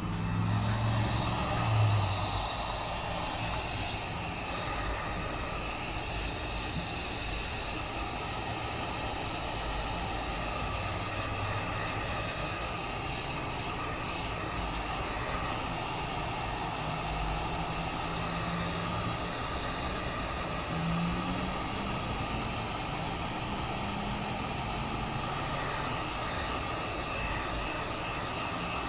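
Heat gun blowing steadily, heating the phone's front glass to soften its adhesive for removal. It comes on at the start, a little louder for the first couple of seconds, then holds an even hiss.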